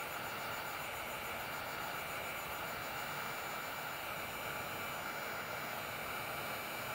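Electric heat gun blowing hot air steadily: an even rush of air with a faint steady whine in it.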